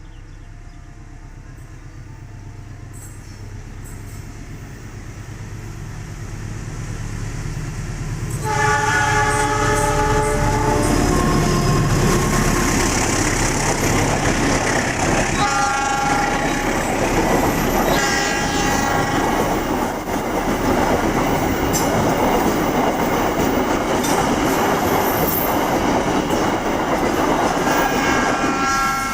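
Train approaching and passing at close range: a low rumble builds, then the locomotive's horn sounds three times, loud chords lasting a few seconds each, over the wheels clattering on the rails.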